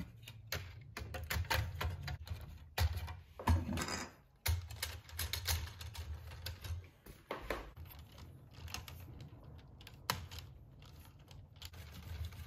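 Irregular clicks and clatter of LEGO Technic plastic parts as the truck's bodywork is handled and pressed onto the chassis.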